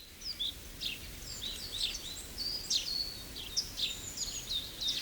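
Several small songbirds chirping and twittering, with many quick high chirps and short whistles overlapping throughout, over a faint steady background hiss.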